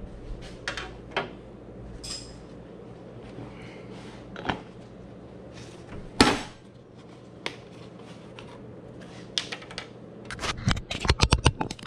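Handling noises as a plastic funnel is set in the engine's oil filler and an oil jug readied: scattered light clicks and knocks, a sharper knock about six seconds in, and a quick run of clicks near the end.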